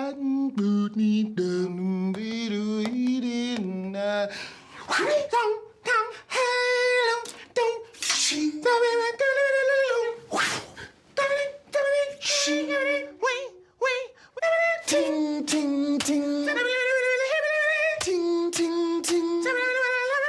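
Mouth sound effects made by a man's voice, beatbox-style: a low buzzing hum that steps up and down in pitch for the first few seconds, then sharp clicks and pops mixed with held, pitched vocal tones that break off and restart.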